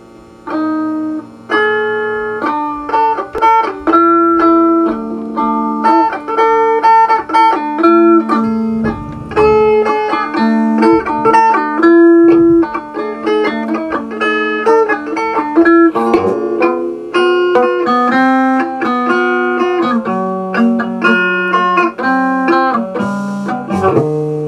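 Stratocaster-style electric guitar played solo, picking a melodic line of single notes that starts about a second in.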